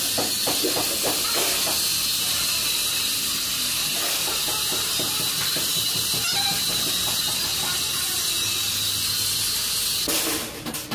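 A steady high hiss with a faint high whine, which cuts off abruptly about a second before the end.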